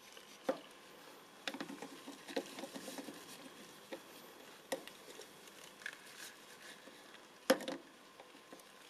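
Small 1:24-scale model car parts handled by hand: light clicks and taps as they are set down and knocked against a plastic cup, with faint wet squishing as they are dipped into liquid. The sharpest click comes about seven and a half seconds in.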